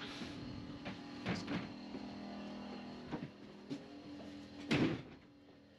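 Footsteps and knocks moving across a wooden boat's deck and cabin floor over a steady low machine hum. One louder thump comes near the end, then the hum drops away.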